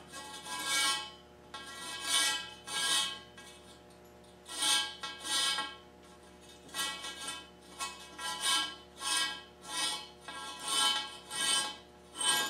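Mini RG8 coax cable being shoved through a steel antenna mast pipe in repeated strokes, a little more than one a second, each scraping along the inside of the pipe while the metal pipe rings.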